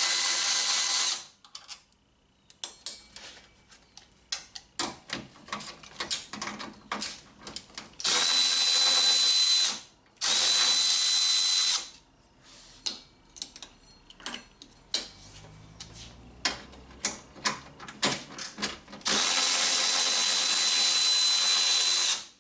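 Milwaukee M12 cordless electric ratchet running in short bursts as it spins bolts out of the radiator support: one run ends about a second in, two short runs come about eight and ten seconds in, and a longer run comes near the end, each with a high whine. Light clicks and clinks of the tool, socket and bolts fall in between.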